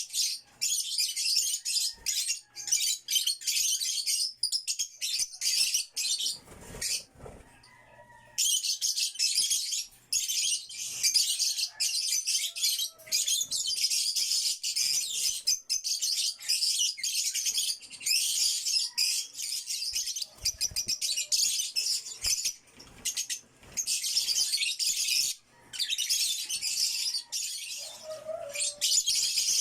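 African lovebirds chattering in rapid, shrill, high-pitched chirps, with a brief lull about seven seconds in.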